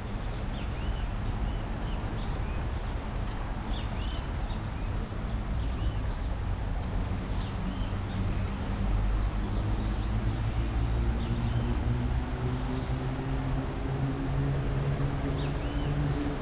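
Steady rushing of a shallow river running over rapids, with small birds chirping now and then and a thin high whine that stops about halfway through. A low hum with several pitches grows in over the last few seconds.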